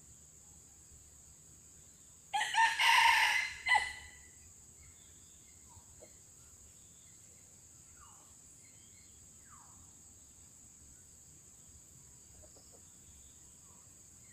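A red junglefowl rooster crows once, a short crow of about a second and a half ending in a clipped final note, over a steady high insect drone. A few faint, brief bird chirps follow.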